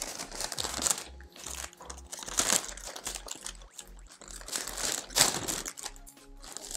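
Plastic plant packaging crinkling and rustling in several bursts as it is handled, the loudest just after five seconds, over background music with a steady beat.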